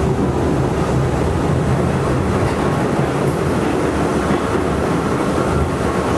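Steady rumble of an R68 subway car running at speed, heard from inside the car: wheel and track noise with a deep drone underneath.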